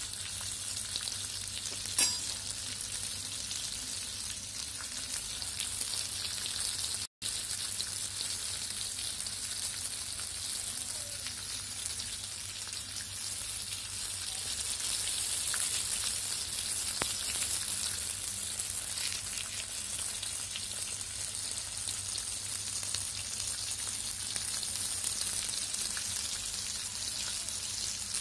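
Oil sizzling steadily around a whole masala-coated fish shallow-frying in a wide, flat iron pan, with faint scattered crackles. There is one sharp pop about two seconds in, and the sound cuts out for an instant a few seconds later.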